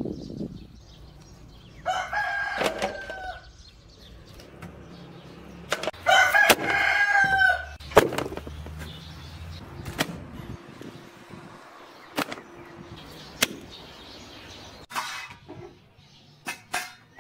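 A rooster crowing twice, each crow a long call of about a second and a half, the second louder. Several sharp knocks follow in the later part.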